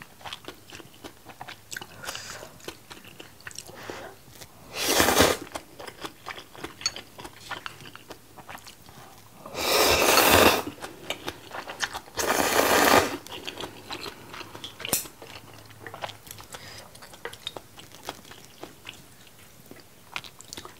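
Close-miked eating of spicy seafood jjamppong ramen: wet chewing with many small clicks. Three loud slurps of noodles come about five seconds in, about ten seconds in, and again two seconds later.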